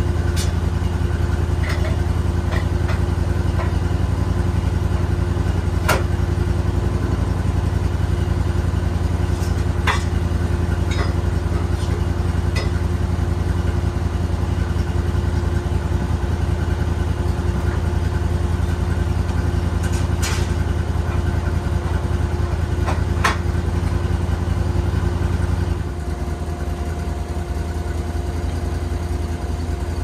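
Homebuilt sawmill's engine running steadily, with a few sharp knocks. The drone drops in level a few seconds before the end.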